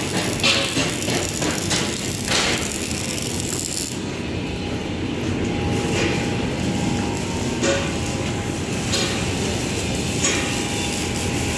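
Steady noise of a metal fabrication shop, with a few scattered knocks and clanks of metal.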